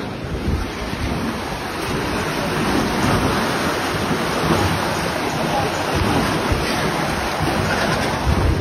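River water rushing and churning through the sluice gates of a weir: a steady, even rush of turbulent water.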